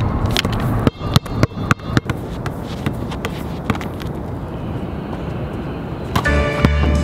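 Outdoor city ambience with a steady wash of traffic noise, broken about a second in by a quick run of sharp knocks. Music starts near the end.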